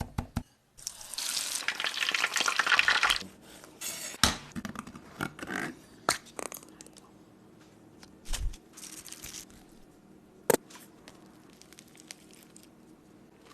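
Kitchen sounds from making a fried chicken sandwich: about two seconds of dense crackling early on, then scattered light taps and rustles of food being handled, with one sharp click about ten seconds in.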